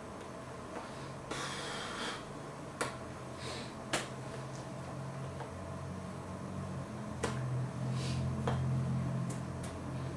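Steady low room hum with four sharp clicks and a few short rustles scattered through it.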